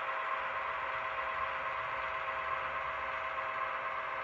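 HO-scale model diesel locomotive's sound decoder playing a steady engine sound through its small speaker, thin and without bass.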